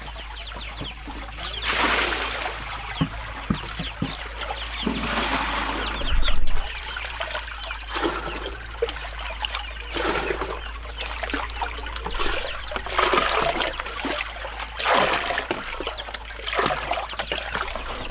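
Water from a hose pouring into plastic basins and buckets, splashing and churning as they fill. The pour swells and eases in stretches, with a few short knocks among it.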